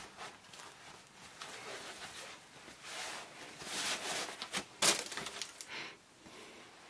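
Tissue paper and a cloth dust bag rustling as a slide is unwrapped by hand, getting busier past the middle, with one sharper crinkle near five seconds.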